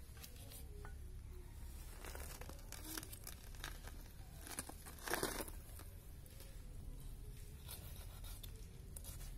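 Goat hide being pulled and cut away from the carcass by hand and knife: scattered short tearing and scraping sounds, the loudest a brief rip about five seconds in, over a steady low rumble.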